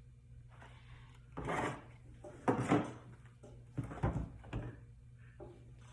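Plastic armrest console parts being handled and moved about on a workbench, giving several short clacks and scrapes.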